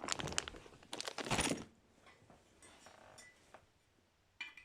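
Small metal tools and objects clattering and clinking as they are rummaged through and handled: a dense clatter for the first second and a half, then a few faint clicks, and one sharp clink near the end.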